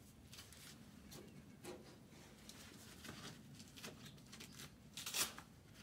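Faint rustling and soft clicks of work gloves being pulled on and adjusted, with a louder brief scuff of glove or clothing about five seconds in.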